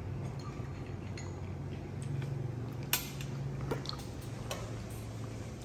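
A few light clicks and taps of tableware on a glass table: a spoon, a ceramic bowl and a glass plate. The sharpest is about three seconds in, with two softer ones after it, over a low steady hum.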